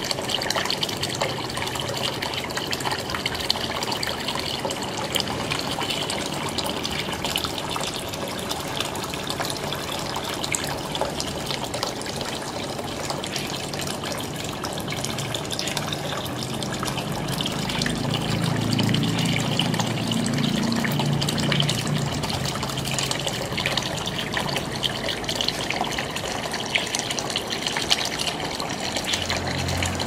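A small tabletop rock fountain running: a thin stream of water pours steadily from the top stone into its basin, a continuous splashing trickle. A low rumble swells for a few seconds past the middle.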